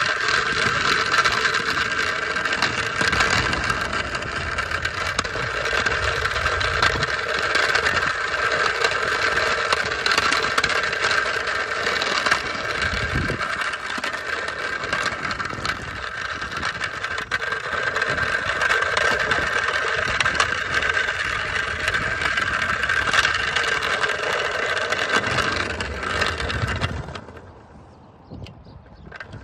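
Electric hub motors of a hoverboard driving a go-kart attachment, a steady whine over the noise of small wheels rolling on asphalt. It drops away sharply near the end as the kart stops.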